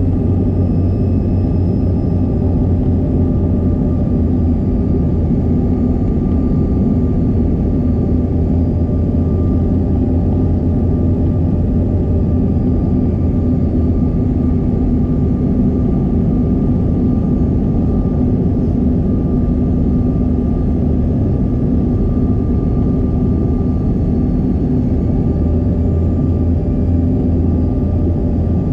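Steady cabin noise of a CRJ200 airliner in flight: the low hum of its two rear-mounted GE CF34 turbofans and the rush of air past the fuselage, with a few steady whining tones on top.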